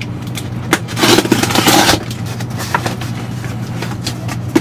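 A cardboard shipping box being opened: its packing tape cut and the flaps worked open, with one loud tearing scrape about a second in that lasts about a second, then a few light cardboard clicks and rustles.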